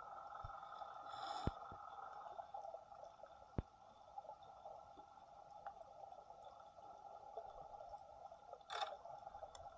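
Faint underwater ambience: a steady two-toned hum with scattered sharp clicks and two brief hissing rushes, one about a second in and one near the end.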